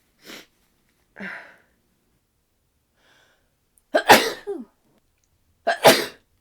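A person sneezing twice, loudly, about four and six seconds in, after two short gasping breaths in the first second and a half.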